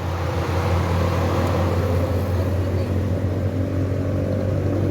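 2007 Toyota Corolla GLI petrol engine idling steadily with a new ignition coil fitted to cure a misfire.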